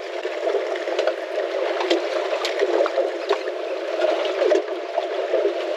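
Water sloshing and gurgling against the hull of a small fishing boat, a steady watery rush broken by frequent small splashes and clicks.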